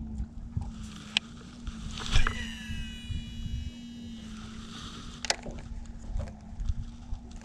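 Baitcasting reel being cast: a sharp click as the spool is released about two seconds in, then the spool's high whirring whine as line pays out, fading over about two seconds. A second click comes about a second later, and a steady low hum runs underneath.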